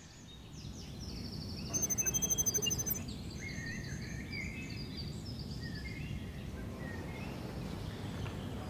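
Outdoor ambience of birds chirping over a steady low background noise. A rapid, evenly pulsed high-pitched trill of about nine pulses a second sounds for just over a second, around two seconds in.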